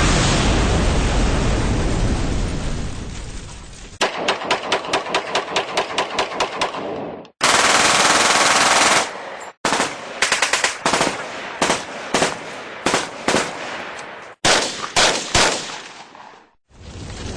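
Battle sound effect: a loud blast fading away over the first few seconds, then several bursts of machine-gun fire at about six shots a second, with short pauses between bursts and a brief loud noise burst in the middle.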